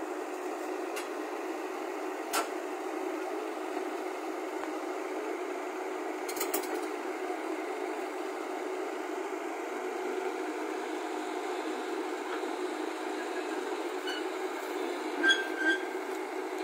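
JCB tracked excavator's diesel engine running steadily as the machine crawls up onto a flatbed truck's deck. Two brief, louder squeaky knocks near the end.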